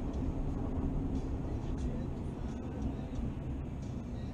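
Car engine and road noise heard from inside the cabin while driving: a steady low rumble with a faint hum.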